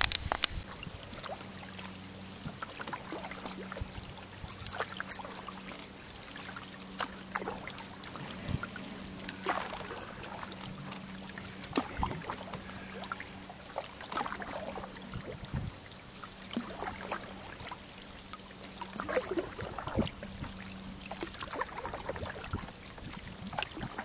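Canoe paddle strokes in calm river water: the blade dips and pulls with trickling drips off it, and sharp clicks and knocks come at irregular times.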